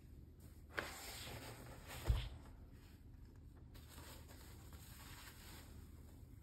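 Gloved hands handling vinyl boxing gear: a sharp tap about a second in, rustling and rubbing of the synthetic covering, and a dull thump about two seconds in, then softer rubbing.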